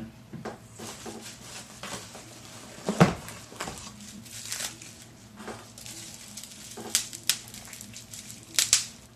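Plastic bubble wrap crinkling and rustling in irregular crackles as wrapped bottles are handled and unwrapped, with a sharp thump about three seconds in.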